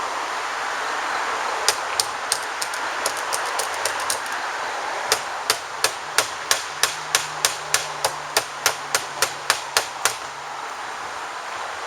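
Hammer blows on an old, decayed attic vent as it is knocked out from inside the attic: a few scattered strikes, then a steady run of about three blows a second that stops about two seconds before the end, over a steady background hiss.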